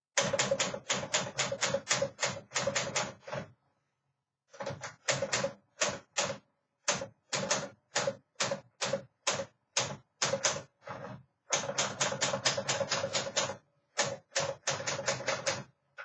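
1959 Smith Corona Sterling manual typewriter being typed on: quick runs of key strikes, broken by short pauses.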